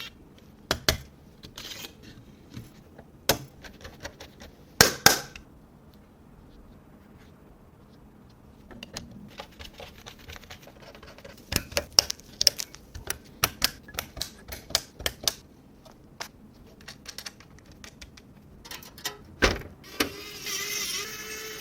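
Computer hardware being handled and fitted: scattered sharp clicks and clacks of parts and screws, in short clusters. Near the end comes a brief steady whine from a small electric motor.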